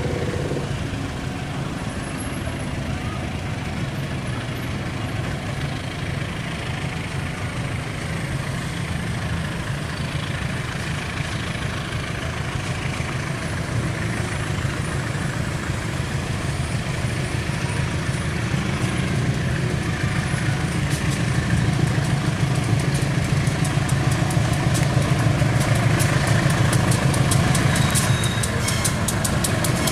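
Diesel-electric locomotive hauling a passenger train and approaching at low speed, its engine running with a steady low drone that grows louder as it nears. From about two-thirds of the way in, a rapid run of clicks comes from the wheels passing over the rail joints and points.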